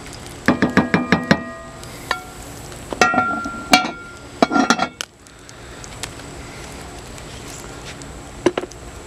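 Wooden spoon knocking quickly several times against the rim of a cast-iron Dutch oven, the pot ringing with each hit. Then a cast-iron skillet lid clanks and scrapes as it is set on the pot, in two ringing bursts, with one more click near the end.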